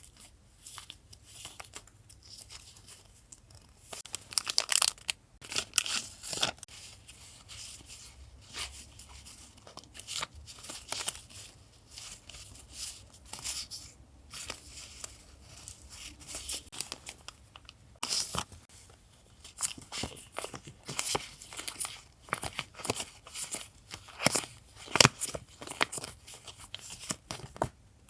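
Paper and wrapping being handled by hand: irregular crinkling and tearing rustles, busiest in the first third and again over the last ten seconds.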